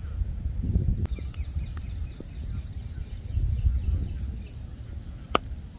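Birds chirping faintly over a steady low rumble. There is a small click about a second in and a single sharp crack near the end.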